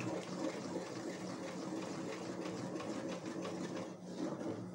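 Wooden spoon stirring thick, softened soap paste briskly in a metal pot: a rapid, even run of scraping and knocking strokes against the pot.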